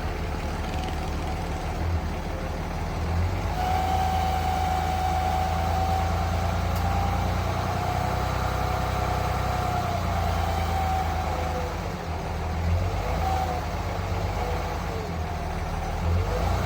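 Dodge Ram's Cummins turbo-diesel engine idling with a howl over the engine note. The howl holds steady at first, then wavers in pitch in the second half. It comes from a bad alternator bearing.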